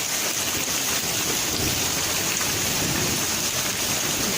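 Steady heavy rain falling and pattering on surfaces, with a low rumble about halfway through.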